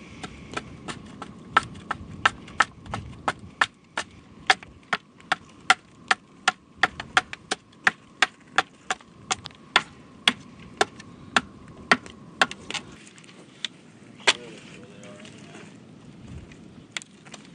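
A large bushcraft knife chopping into a wooden paddle blank, about three sharp strokes a second, notching pieces off the sides to form the shaft. The strokes stop about two-thirds of the way through, then a few scattered strikes follow.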